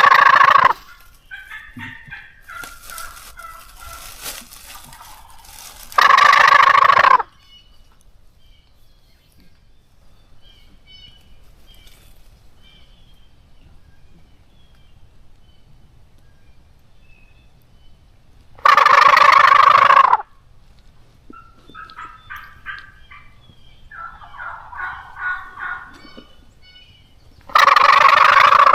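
Gobbler call used by a turkey hunter, sounding four loud gobbles several seconds apart. Fainter gobbling from a wild tom turkey answers in between.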